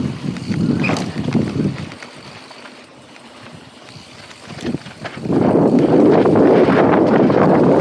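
Wind buffeting the microphone and the rumble of mountain bike tyres rolling over the trail. It drops away to a low level for a few seconds in the middle and comes back loud about five seconds in.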